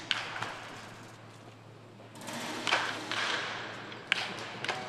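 Baseball bat striking balls off a batting tee: three sharp cracks, at the start, about two and a half seconds in and about four seconds in, with a fainter knock near the end, echoing in an indoor practice dome.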